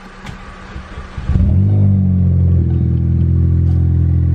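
Ford Focus ST's turbocharged 2.5-litre five-cylinder engine cranking briefly, catching about a second and a half in, flaring up and then settling to a steady idle about a second later. This is its first start on a freshly flashed base-map tune for a larger GTX2867R turbo.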